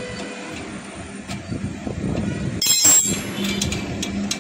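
Metal clinking from a spanner working the rear axle nut of a motorcycle, with a sharp cluster of clinks about three seconds in, over steady background noise. A steady low hum comes in just after the clinks.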